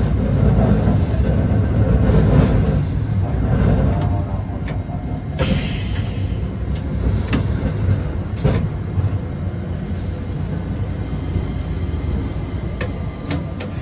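Hakodate city streetcar running along street track: a steady low rumble of motors and wheels, with occasional sharp clacks. A thin, high steady whine comes in over the last few seconds.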